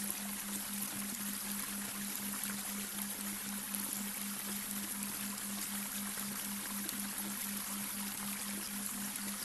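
Babbling brook running steadily, layered with a low humming tone that pulses evenly about four times a second: the delta-wave binaural-beat track.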